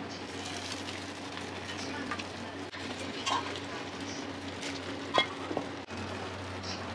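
Egg mixture sizzling in a rectangular tamagoyaki pan over a gas burner as a dashimaki omelette is cooked, with chopsticks stirring and scraping the egg. A few sharp metal clinks of utensils on the pan; the loudest comes about five seconds in.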